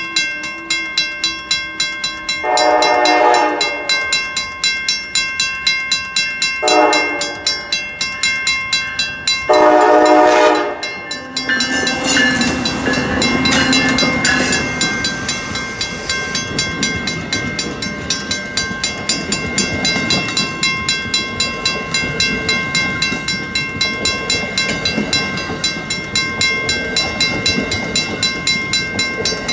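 Grade-crossing warning bells ringing steadily at about three strikes a second while an Amtrak ACS-64 electric locomotive sounds its horn three times: long, short, long. The train then passes close by, the locomotive and its coaches rumbling and clattering over the rails.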